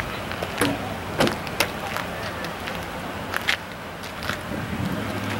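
Outdoor car-show background: a steady low hum under general noise, broken by a few short, sharp clicks and knocks.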